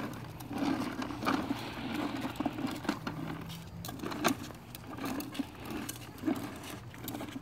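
Hard plastic wheels of a child's ride-on push car rolling and rattling over a concrete driveway, an uneven rumble with scattered clicks and knocks.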